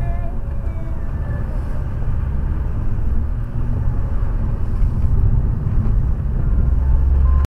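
Inside the cabin of a BMW F30 328i with its N20 turbocharged four-cylinder, driving at speed: a steady low rumble of engine and tyre noise.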